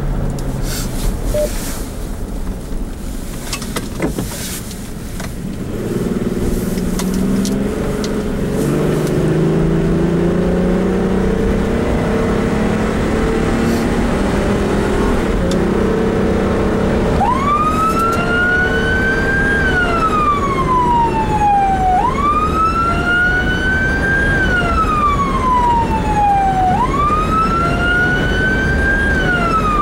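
Fire department response vehicle driving, heard from inside the cab, its engine pulling steadily. From a little past halfway, its wail siren sweeps slowly up and down, about once every five seconds.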